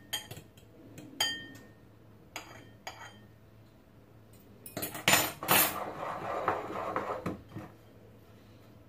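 A metal fork clinks several times against ceramic bowls as an egg-coated croquette is lifted and dropped into breadcrumbs. After a quiet pause comes a longer scratchy rustle with a few more clinks as the croquette is rolled in the breadcrumbs.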